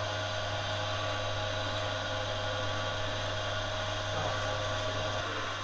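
Electric spiral dough mixer running steadily as its hook kneads sangak bread dough in a steel bowl: a constant motor hum with a faint steady whine above it.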